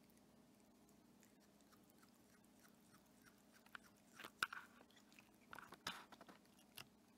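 A cat biting and chewing on a quadcopter's motor and plastic frame arm: faint clicks and crunches of teeth, with a few louder bites in the second half.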